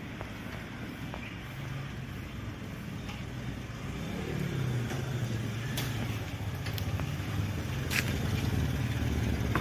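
A motor vehicle's engine running, its low hum growing steadily louder, with a few faint clicks.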